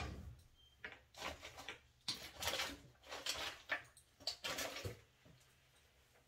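Rummaging among small objects on a bathroom counter or in a drawer: a string of short clatters and rustles, several a second apart, dying away about a second before the end.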